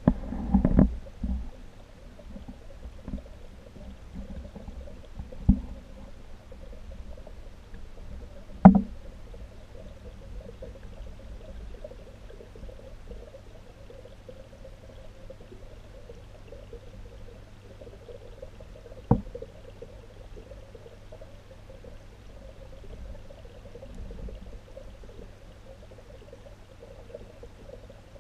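Muffled water sound picked up by a submerged camera: a steady low hum with a faint pouring, trickling wash. A few dull knocks break it: a cluster right at the start, then single knocks around five, nine and nineteen seconds in.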